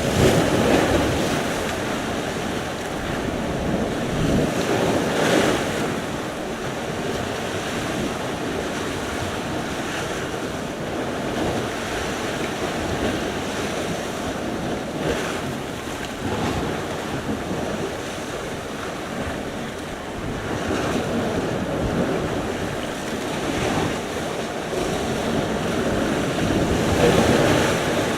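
Sea surf: waves breaking and washing ashore in a continuous rush, swelling louder at the start, about five seconds in and again near the end.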